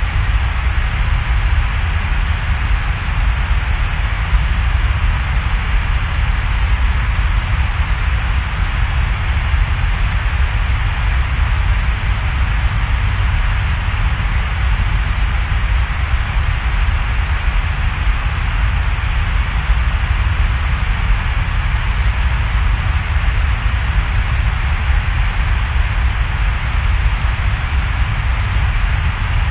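Steady, even hiss like rain or static, with a low rumble underneath and no change in level.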